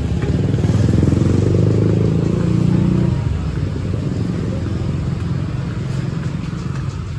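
A motor vehicle engine running close by, with a low steady hum. It is loudest from about half a second to three seconds in, then fades.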